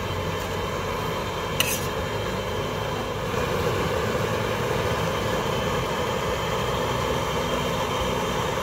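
Dakbokkeumtang sauce bubbling and sizzling in a griddle pan over high heat, a steady crackling simmer, with one brief click about two seconds in.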